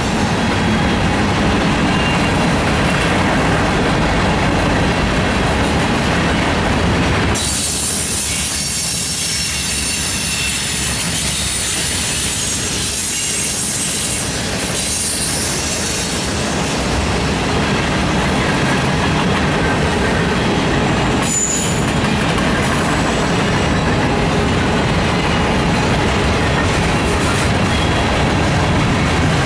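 Freight cars of a Norfolk Southern mixed freight train rolling past at close range: steady loud wheel-on-rail noise, with thin high-pitched tones from squealing wheels.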